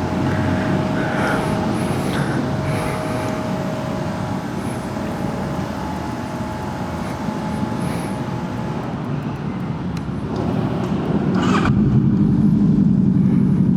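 A vehicle on the road, its engine and road noise running steadily; about eleven and a half seconds in, the engine note grows louder and lower.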